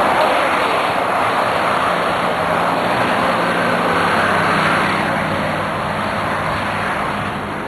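Steady road traffic noise, with a low engine hum that swells in the middle and fades toward the end.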